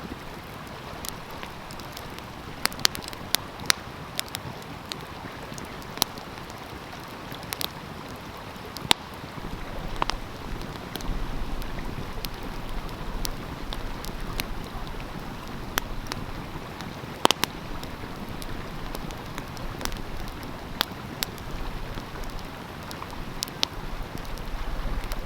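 Wood fire crackling, with sharp irregular pops, over the steady rush of a flowing stream. A low rumble joins about ten seconds in.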